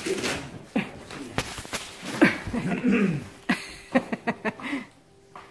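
Border collie puppies ripping up cardboard and paper on a wooden floor: tearing, rustling and paw scrabbling as a string of sharp, irregular clicks, with a few short puppy vocalisations, the loudest about two and a half seconds in.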